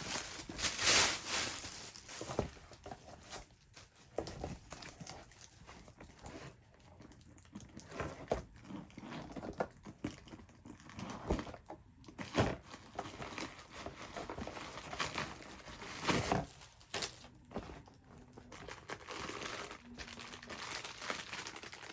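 Packaging being unwrapped and handled around a new handbag: irregular crinkling and rustling with occasional sharper crackles.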